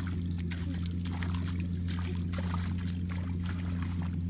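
Shallow muddy water splashing and sloshing in small irregular bursts as bare feet and hands wade through a flooded rice paddy, over a steady low hum.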